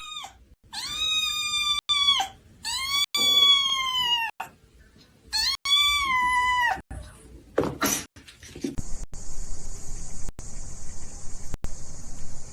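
A cat meowing three times: long, drawn-out, high meows, each holding its pitch and then dropping away at the end.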